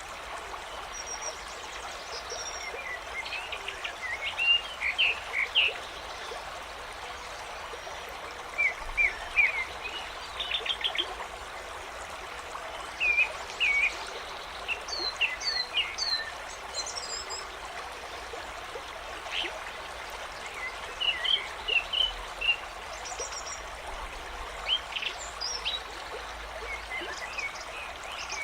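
Nature ambience track: a stream running steadily, with many birds chirping and trilling in short phrases over it.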